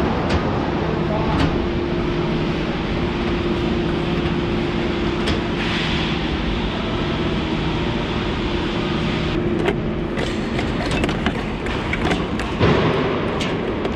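Steady drone of industrial plant machinery with a low hum running through it. From about two-thirds of the way in, a run of clicks and knocks from multicore cables being pushed by a gloved hand into a terminal enclosure.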